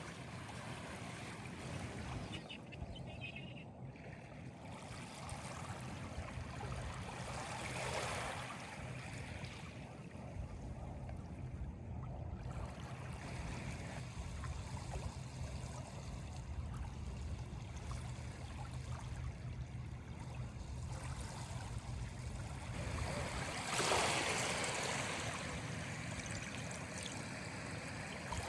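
Water trickling and lapping in a steady wash, with a louder surge about eight seconds in and a bigger one near the end.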